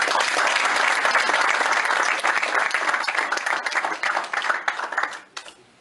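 A roomful of people applauding, many hands clapping at once, in response to the end of a speech. The clapping starts all together and dies away after about five seconds.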